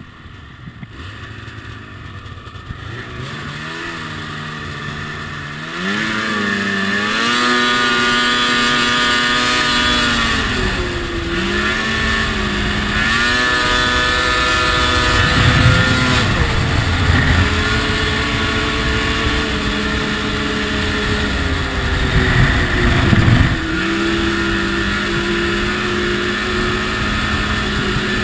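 Ski-Doo snowmobile engine under way on a trail, climbing in pitch and level over the first several seconds, then running at speed with the throttle easing off and coming back on a few times.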